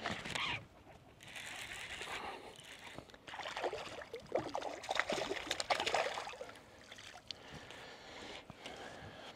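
A hooked bass thrashing and splashing at the water's surface, with the loudest run of splashes in the middle.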